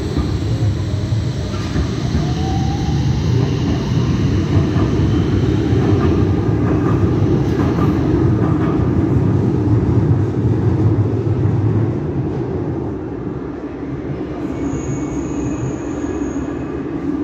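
Metro do Porto CRRC light-rail tram running on the track: a steady low rumble that swells and then eases off, with a thin high tone for about two seconds near the end.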